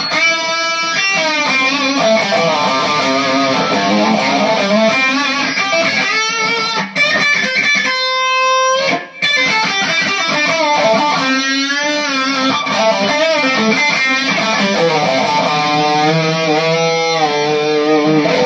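Electric guitar on its bridge-position Tim Shaw PAF humbucker, played with light overdrive through a small Peavey Vypyr solid-state amp. It plays a run of notes, a held note about eight seconds in, and wavering notes with vibrato near the middle and end.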